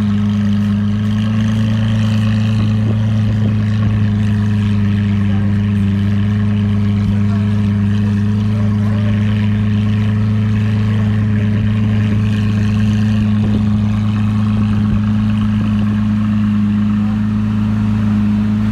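A vehicle engine running at a steady speed, a constant low drone that holds one pitch throughout without revving.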